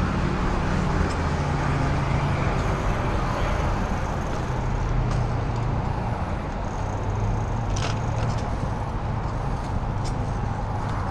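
Steady road traffic noise from cars on the road alongside, heard from a moving bicycle, with a low rumble throughout and a few short clicks or rattles in the second half.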